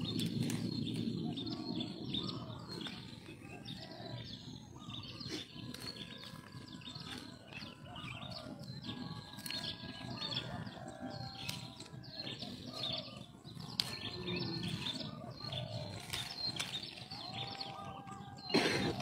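Birds chirping over the rustle of chili plant leaves and small snaps as green chilies are picked by hand, with one loud knock near the end.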